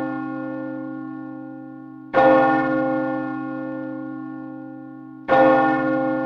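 A deep bell tolling: struck twice, about three seconds apart, each stroke ringing on and slowly fading, while the ring of an earlier stroke is still dying away at the start.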